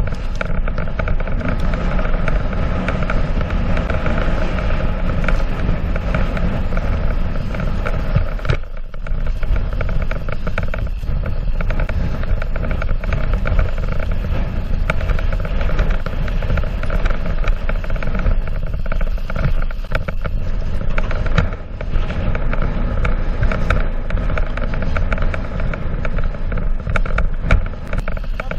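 Mountain bike descending a rough, rocky trail: a steady rush of wind on the camera microphone with tyres rolling and the bike rattling over the ground. The noise drops briefly about eight seconds in and again about twenty-one seconds in.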